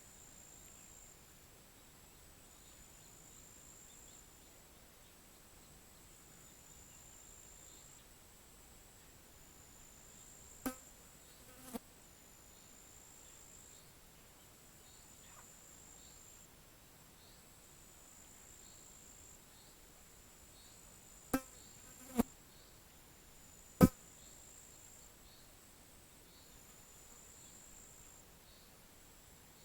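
High-pitched insect trilling in repeated stretches of a second or two, with faint short chirps in between. Sharp clicks cut through it: a pair about eleven seconds in, another pair about twenty-one seconds in, and a single louder click shortly after.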